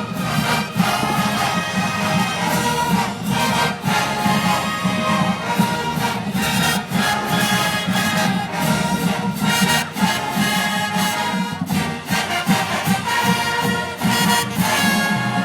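Marching band playing, its brass section of trumpets and trombones carrying the tune over drums.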